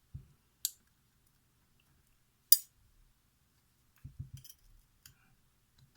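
Scattered small metallic clicks and taps of tools working the pins and springs of a disassembled lock cylinder: one sharp, loud click about two and a half seconds in, then a few soft knocks a little after four seconds.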